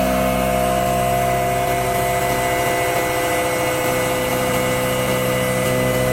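CNC milling machine cutting metal with a corncob roughing end mill, a loud steady hum of several held tones.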